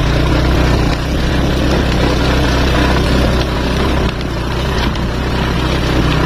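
Vehicle engine running steadily while crawling slowly along a rough, slippery dirt road: a constant low hum with noise over it, dipping briefly about four seconds in.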